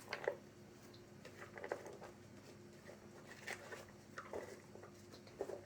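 Faint scattered soft taps and clicks of kitchen handling, ingredients and utensils being moved while dressing is prepared, over a faint steady hum.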